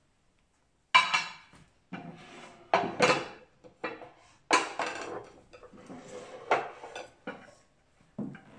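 Plate and tea glasses clinking and knocking as they are set down on a table and tray: a series of sharp clatters starting about a second in.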